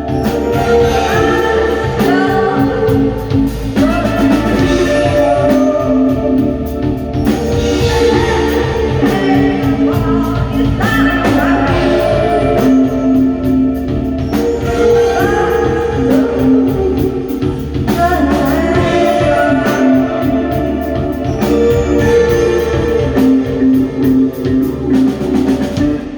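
Live band playing a cover song, with singing over guitar and drum kit; the music stops abruptly right at the end.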